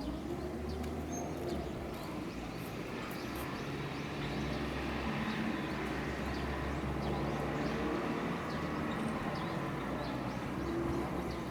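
Steady low engine hum of a nearby vehicle, with faint bird chirps over it.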